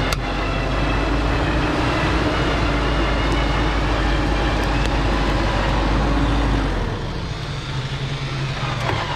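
Mercedes X-Class 250 d pickup's four-cylinder diesel engine working under load on a steep climb while a winch rope hauls it from the front, with a steady whine over the engine. The sound drops somewhat about seven seconds in.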